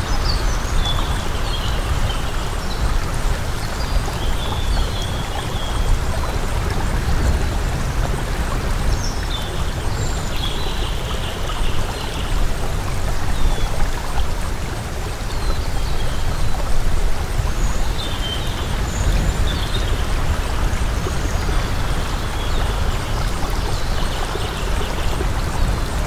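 Running water of a stream or waterfall, a steady rushing flow, with short high chirps scattered over it throughout.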